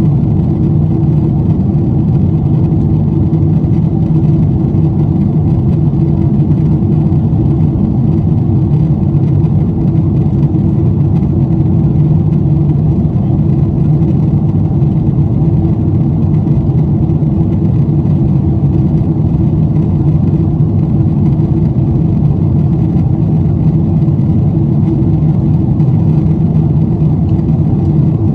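Steady cabin drone of a Boeing 747-8i in flight: its General Electric GEnx engines and rushing air, with a low hum held at a constant pitch.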